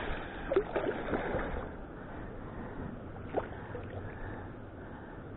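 Water splashing and sloshing around an inflatable kayak as a hooked pike is fought close to the boat, with a few sharp splashes or knocks. The loudest comes about half a second in, and another about three seconds in.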